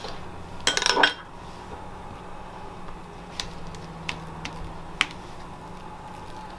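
Metal spoon clinking and scraping while sauce is spread over a flatbread. There is a louder clatter about a second in, then a few light, separate clicks.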